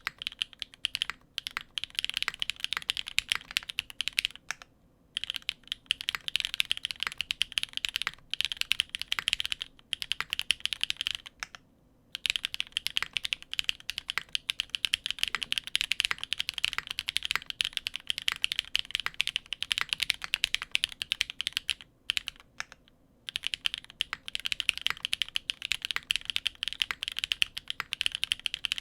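Steady fast typing on a custom mechanical keyboard: lubed Gateron x Geon Peri linear switches on an FR4 plate under GMK Maestro keycaps, clacking in long runs broken by a few short pauses.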